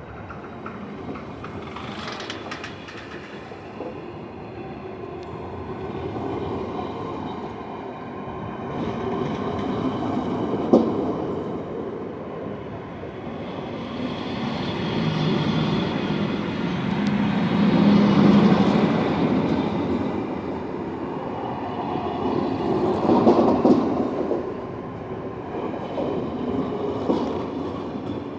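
SJ night train's carriages rolling past as it pulls out of the station, the rolling noise swelling and fading, with a few sharp knocks and a faint wheel squeal.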